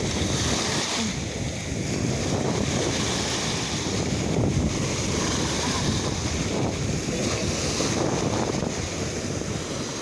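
Small sea waves breaking and washing in foam over a shallow sandy shore in a steady rush of surf, with wind buffeting the microphone.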